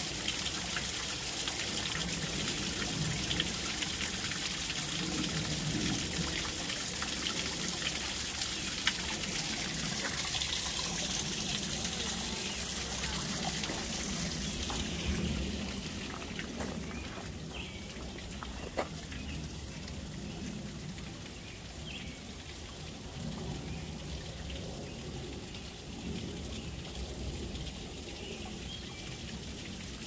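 Small waterfall trickling and splashing steadily down a rock face into a shallow pool; the splashing grows fainter about halfway through.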